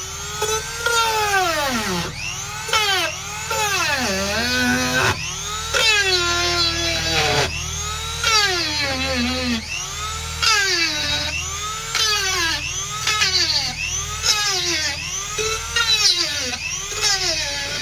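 Small electric drill-sander polishing drilled holes in a wooden batten: a high motor whine whose pitch rises and falls about once a second.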